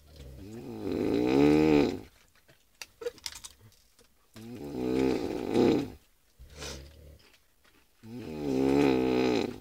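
Snoring: three long snores about four seconds apart, each swelling louder before it stops, with quieter breaths between them.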